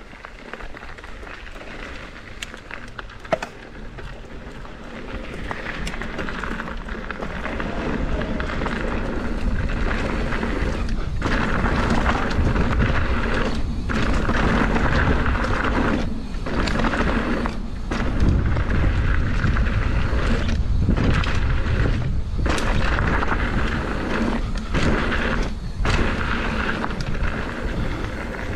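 Wind rushing and buffeting over the microphone with tyres rolling over a dirt trail on a fast mountain bike descent, swelling over the first ten seconds as speed builds and then staying loud, with several brief dips. A few sharp clicks in the first few seconds.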